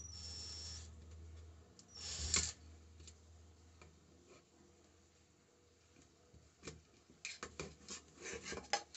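12-volt IZOM cordless drill driver running in two short high-pitched whirs, the second louder, as it drives a screw into a wood board. Near the end come a run of light clicks and rattles.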